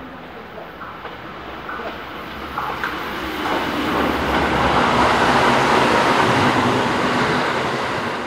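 Electric trains passing on curved track: a Keihan commuter train on the near track goes by close, its wheel-on-rail running noise swelling from about three seconds in and staying loud until near the end. A few faint clicks come before it.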